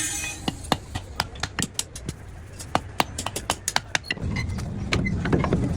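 A quick, irregular run of sharp taps and clicks. About four seconds in, a low, steady rumble sets in.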